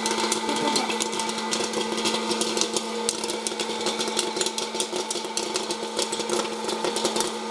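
Hot-air popcorn popper running: its fan motor hums steadily under a rush of blown air, with corn kernels popping in quick, irregular cracks as popped corn is blown out of the chute.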